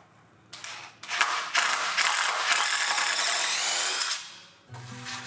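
Cordless drill running into a wooden board: a short burst about half a second in, then a steady run of about three seconds.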